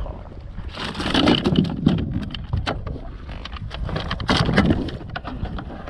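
Irregular knocks and clatter of a red drum being handled in a plastic kayak with a lip-grip tool and landing net, the fish struggling and nearly slipping free. The loudest scuffles come about a second in and again past four seconds.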